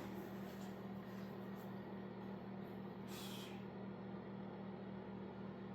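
Steady low machine hum, with a brief hiss about three seconds in.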